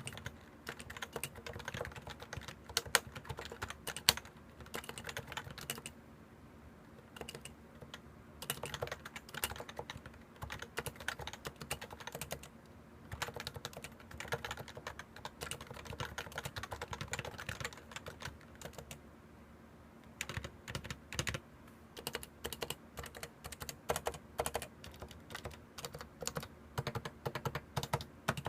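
Typing on a Topre Realforce 87U keyboard with 45 g electrostatic capacitive switches, stock unlubricated sliders and PBT keycaps. The keystrokes come in quick runs broken by short pauses, with two louder strokes about three and four seconds in.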